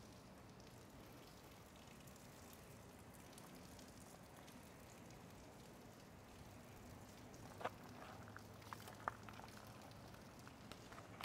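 Near silence: faint outdoor background with a few sharp, light clicks scattered through the second half.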